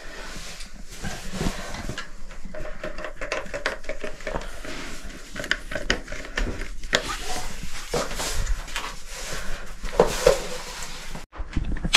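Dive suits being soaped up by hand: a steady run of soft rubbing, rustling and small clicks, with a brief drop-out about eleven seconds in.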